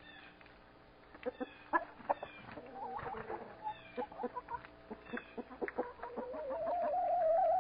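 Domestic hens clucking in many short, quick notes. Near the end one hen gives a single drawn-out, wavering call that grows louder.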